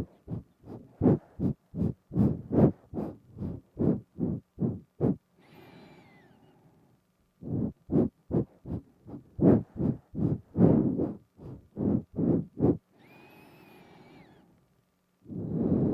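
Rapid short breaths through the nose, sniffing right up against a binaural microphone, at about three to four a second in two runs. Each run is followed by a slower, quieter nasal breath with a faint whistle, and a long, loud breath starts near the end.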